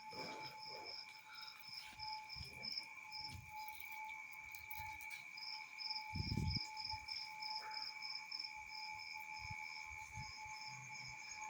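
Night insects: a steady high trilling under a cricket chirping in a fast even pulse, about four chirps a second, which pauses for a couple of seconds midway. A low thump sounds about six seconds in.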